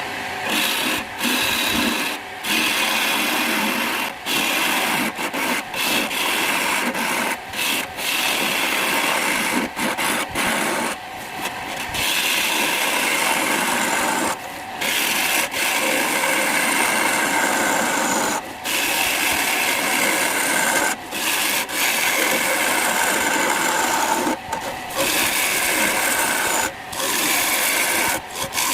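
Wood spinning on a lathe being worked by a tool held against it: a steady scraping noise with many brief gaps as contact is lifted and put back.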